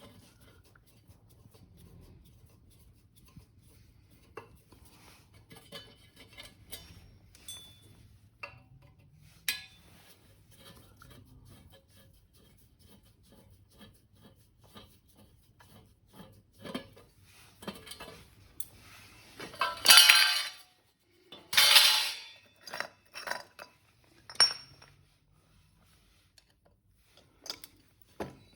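Scattered light clinks and knocks of small metal parts being handled, with two louder, longer scraping noises about twenty and twenty-two seconds in.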